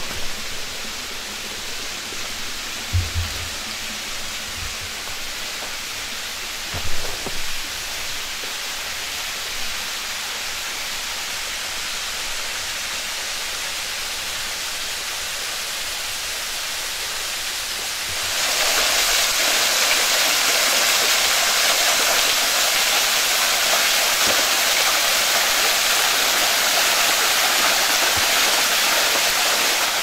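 Rushing water of a waterfall: a steady, even hiss that steps up suddenly, louder and brighter, about two-thirds of the way through. A few low thumps sound in the first several seconds.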